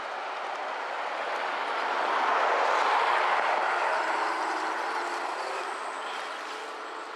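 RC crawler driving with its speaker sound kit playing a simulated truck engine, a thin rushing engine noise with no deep bass. It grows louder until about three seconds in, then fades away.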